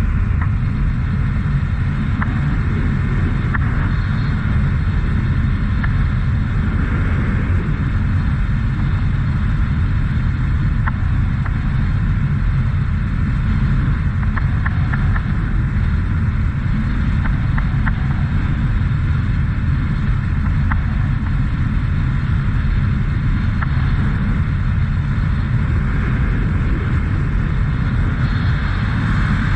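Honda CT125 Trail motorcycle cruising at a steady highway speed: a steady low rumble of its single-cylinder engine mixed with wind rushing over the bike-mounted microphone, with no changes in speed.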